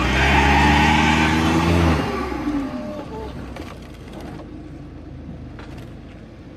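Audi TT RS's turbocharged five-cylinder engine revving hard as the car spins its wheels on loose dirt, slipping and stuck on the climb. About two seconds in the revs fall away and the engine settles to a much quieter run.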